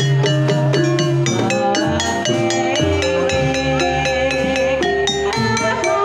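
Banyumasan gamelan playing a tayub gending: quick, even strokes on ringing keyed metallophones, about four a second, with deep kendang drum strokes joining about two seconds in.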